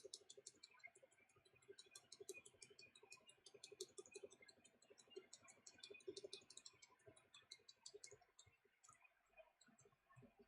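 Laptop keyboard's F2 key tapped over and over, faint rapid irregular clicking, to get into the BIOS while the laptop boots.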